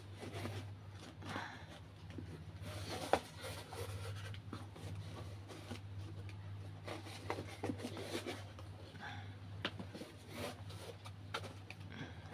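Cardboard box being handled and rubbed as a plastic bulb holder is pushed into a hole cut in its back: scraping and rustling of cardboard, with a sharp click about three seconds in, over a steady low hum.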